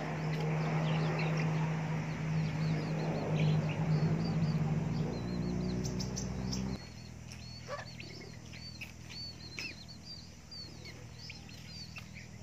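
Village chicken chicks peeping in many short, high chirps. A steady low hum runs underneath for the first seven seconds or so and cuts off suddenly.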